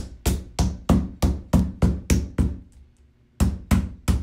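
Rubber mallet tapping the plastic panels of a chicken cage, about three quick blows a second, seating the panel's pegs in their holes. The tapping breaks off briefly a little under three seconds in, then resumes at the same pace.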